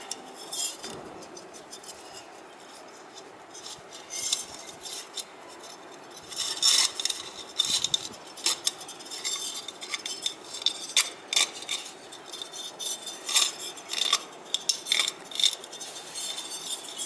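Irregular light metallic clinks and rattles, a wire bird cage being handled while it is worked on.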